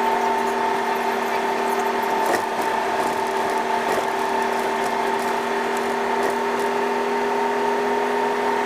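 Truck running at a steady speed, heard from inside the cab: an even drone from the engine and drivetrain that holds one pitch throughout, with a couple of faint clicks.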